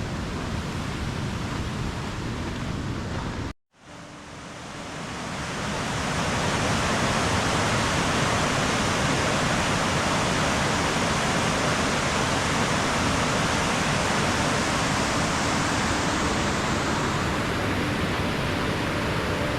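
A waterfall on the Amnicon River: a steady rush of falling water. It cuts out abruptly about three and a half seconds in, then swells back up over the next couple of seconds and holds steady.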